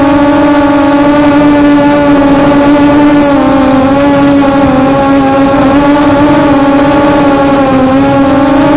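QAV250 quadcopter's four Cobra 2204 2300kv brushless motors spinning 5045 bullnose propellers, heard up close from the onboard camera: a loud steady buzz whose pitch wavers slightly with throttle, with a thin high whine above it.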